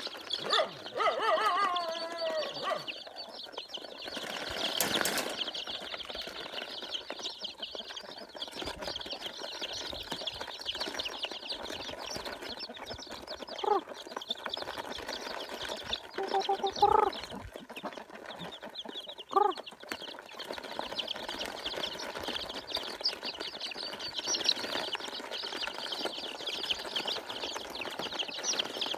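A brood of young chicks peeping nonstop in a dense, high-pitched chorus, with a few short, lower clucking calls mixed in near the start and in the middle. A brief knock or rustle about five seconds in.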